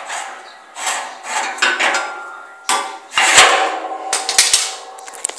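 Steel plate and bar stock clanking and knocking together as a piece is set in place against the plow, with several sharp metal knocks that ring on briefly, the loudest in the second half.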